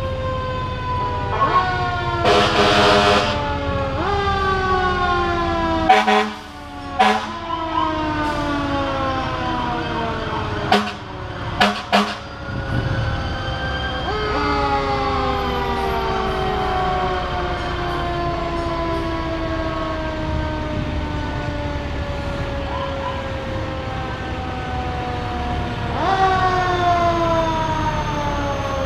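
Fire truck sirens wailing as the trucks pass, several at once, their pitches sliding slowly down and overlapping. A loud horn blast sounds about two seconds in, and a few sharp cracks come between about six and twelve seconds in.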